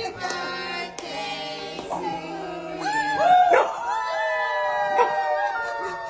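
Pit bull-type dog howling in several long notes that rise and then hold, starting about three seconds in, over background music.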